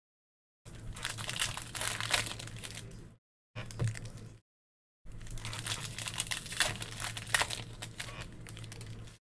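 Foil Contenders football card packs crinkling and tearing as they are handled and ripped open. The sound comes in three bursts of crackling, the last and longest filling the second half, and each burst cuts off abruptly.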